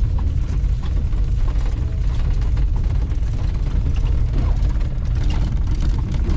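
Horse-drawn farm wagon rolling along a lane: a steady low rumble with faint scattered rattles and clicks.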